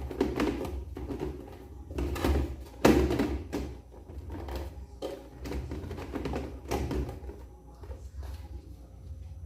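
Plastic clunks and clicks of a Philips Walita blender jar being handled on its base and worked against its lock, a series of separate knocks with the loudest about three seconds in.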